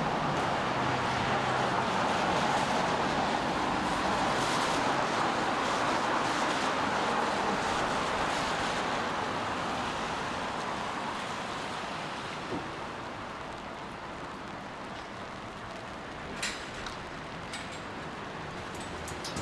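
Rain on a city street with the hiss of car tyres on wet road, easing off over the first half, and a few short sharp ticks near the end.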